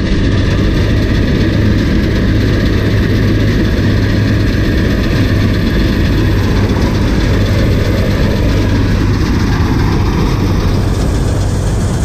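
Tractor-mounted wheat combine harvester, its diesel tractor engine running close by with a loud, steady drone.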